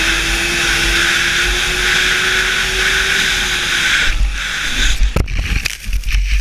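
1997 Ski-Doo 380cc two-stroke snowmobile engine running steadily at speed, its pitch creeping up slightly, with wind rumbling on the camera. About four seconds in the engine note drops away, and a second later comes a cluster of hard thumps and knocks as the sled crashes and the rider flips into the snow.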